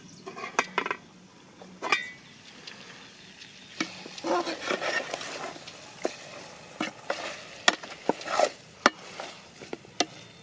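A spoon stirring chicken in a frying pan: irregular clinks and scrapes of the spoon against the pan, with a stretch of sizzling about halfway through.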